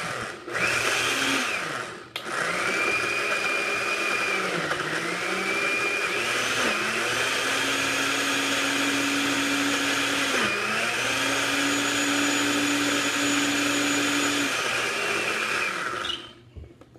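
Countertop blender motor blending a fruit smoothie, pulsed off and on twice in the first two seconds, then running steadily on high. Its pitch dips briefly twice, and it stops near the end.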